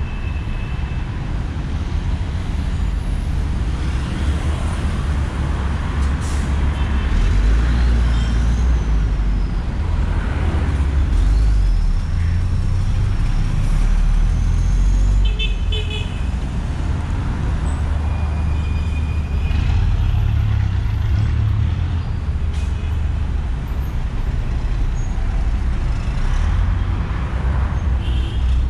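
Busy city road traffic: buses and cars running past in a steady low rumble, with a few short car-horn toots.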